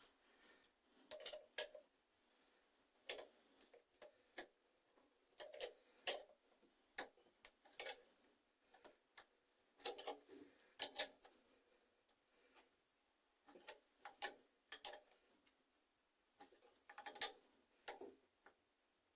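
Pliers clicking and knocking against the metal fittings of a bathroom mixer tap as it is worked on, in irregular sharp clicks with pauses between.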